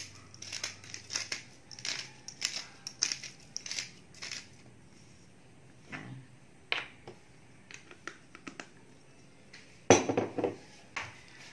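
Hand-twisted pepper grinder cracking black peppercorns, a rapid run of short crunchy clicks at about three a second that stops after roughly four and a half seconds. A few stray clicks follow, then a single loud knock near the end.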